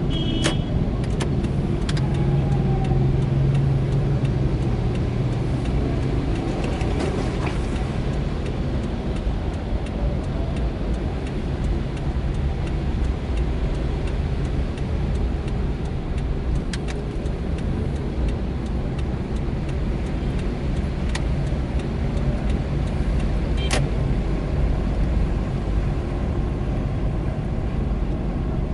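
A car driving on a wet road: a steady engine and road rumble with tyre hiss from the wet asphalt. The engine hum is stronger in the first few seconds, and a few sharp clicks stand out, the loudest about half a second in and near 24 seconds.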